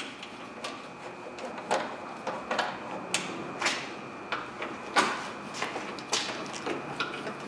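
Irregular clicks, knocks and scrapes of plastic and metal as a pickup's headlight assembly is pushed into place and its fastening screws are put back in by hand, the sharpest knock about five seconds in.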